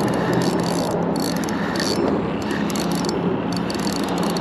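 Fishing reel clicking in bursts as a hooked fish is reeled in and fights the line, over a steady low hum and outdoor noise.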